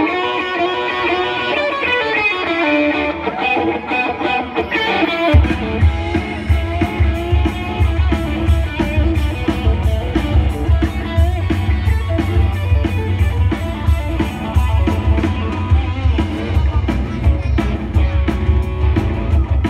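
Live rock band: an electric guitar plays alone with notes that bend in pitch, then bass guitar and drum kit come in about five seconds in and the full band plays on.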